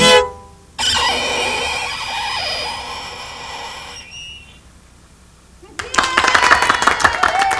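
A fiddle tune ends on a last short bowed stroke. A burst of noise follows and fades over about three seconds, then about six seconds in the audience starts clapping, with voices over the applause.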